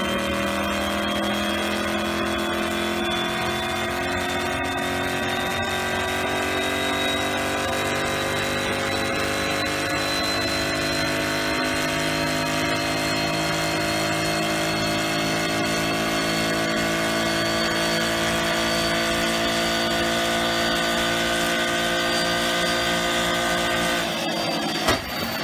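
Ford Mustang GT's 5.0-litre V8 running under load on a chassis dynamometer, its pitch climbing slowly and steadily along with a thin high whine. It eases off near the end.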